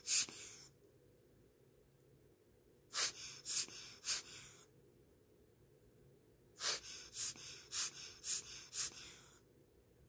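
Hand-squeezed rubber air-blower bulb puffing air onto a watch movement's balance wheel to start it: three runs of quick puffs, a short one at the start, about four a few seconds later, and a longer run of seven or eight near the end. The watch almost starts but won't keep running.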